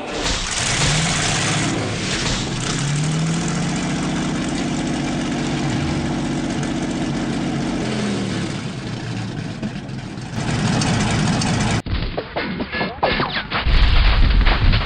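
Tank engine sound effect played through the RC tank's Beier sound module from a custom sound pack, running and revving up and down, with a louder low rumble near the end.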